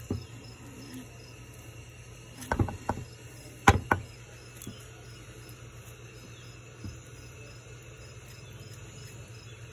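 A green plastic avocado tool scraping flesh out of an avocado skin and knocking it into a plastic bowl: a handful of sharp knocks and scrapes between about two and four seconds in, with a couple of faint ticks later, over a steady faint background drone.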